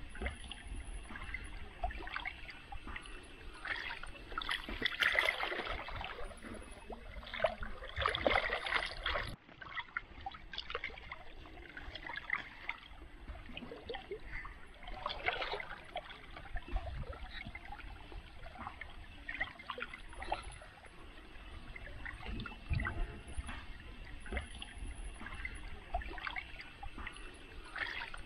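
Hands sloshing and splashing in shallow muddy water while groping along the bank of a ditch for crabs, with irregular splashes and gurgles. The sound drops suddenly about nine seconds in, then carries on more quietly.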